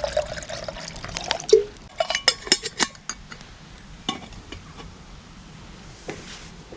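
Stainless steel camp cook pot and lid clinking as they are handled: a cluster of sharp metallic clinks about two to three seconds in, then a few lighter taps.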